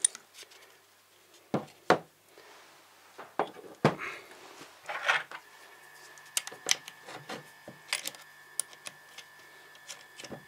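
Bench work on a cordless mini chainsaw: a few sharp knocks as the saw is taken out of a metal bench vise and set down on the workbench, then light scattered clicks as the chain and sprocket are handled. A faint steady hum starts about halfway through.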